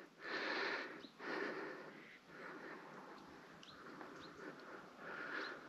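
A person breathing hard while hurrying uphill on foot: several breaths, each about a second long, with a few faint short bird chirps.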